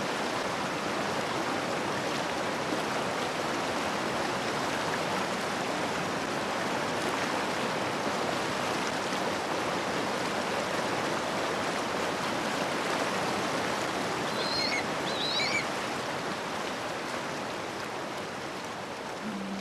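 Rushing water of a wide, fast, silt-laden river, a steady full roar. A few brief high chirps come through about three-quarters of the way in.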